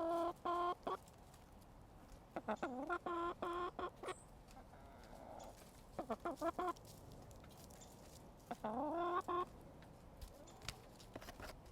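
Hens calling: four bouts of loud squawks a few seconds apart, each rising in pitch and then held, with a few sharp clicks near the end.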